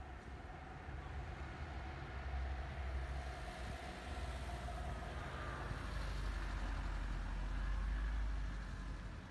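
A motor vehicle's engine running with a low rumble that builds, is loudest about eight seconds in, then eases off.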